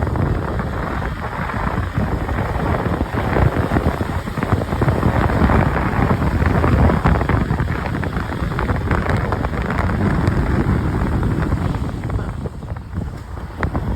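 Heavy wind buffeting the microphone on a moving motorcycle, with vehicle noise underneath; it eases slightly near the end.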